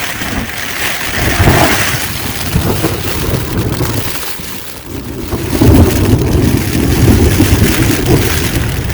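High wind of about 60 to 70 mph gusting and rumbling across the microphone in a storm, easing briefly around the middle and then surging louder about five and a half seconds in.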